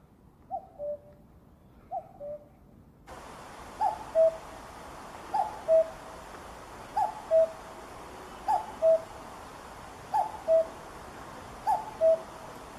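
Common cuckoo calling its two-note "cuck-oo", the first note higher than the second, repeated about every one and a half seconds. About three seconds in, the recording changes to another take with a steady hiss behind the calls.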